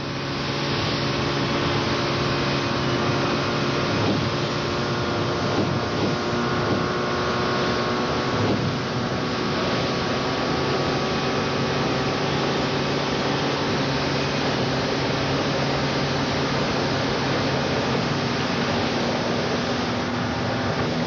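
Motorboat and wave runner engines running steadily at high speed, a continuous even drone with no pauses.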